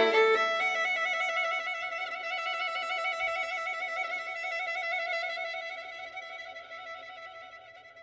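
Bowed violin holding one long note with vibrato after a quick passage, slowly fading away until it stops near the end.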